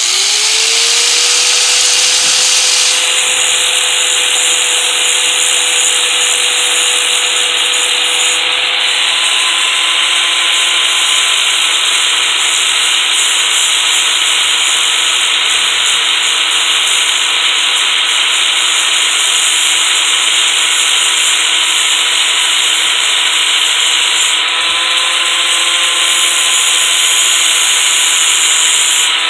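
An electric grinder spinning up, its whine rising in the first second, then running steadily as it grinds down the rivets of a chainsaw chain's drive link so they can be punched out. The hiss of the grinding changes about a third of the way in and again near the end.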